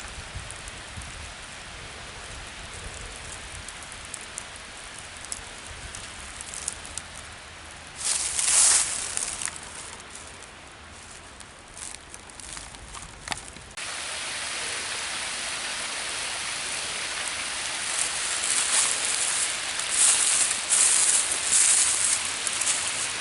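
Rushing water of a woodland waterfall, a steady hiss that jumps louder about two-thirds of the way through, with short crackling rustles now and then.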